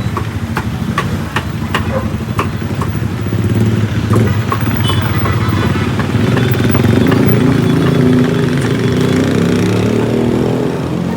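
Motorcycle engine running close by, louder from about halfway through. A series of sharp clicks, about two to three a second, sounds over it for the first few seconds.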